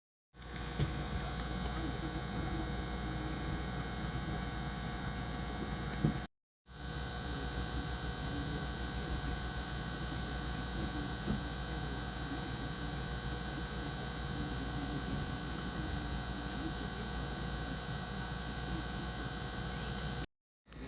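Microwave oven running: a steady electric hum and buzz, broken by two brief silences, about six seconds in and near the end.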